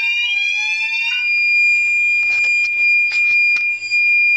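Fire alarm sounders going off during a system test: a rising, sweeping tone over a steady high-pitched tone. About a second in the sweep stops and only the continuous tone carries on, with a few short knocks.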